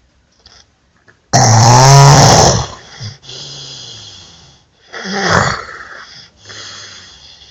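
A sleeping person snoring loudly: a long pitched snore about a second in and a second one around five seconds in, with quieter breaths between them.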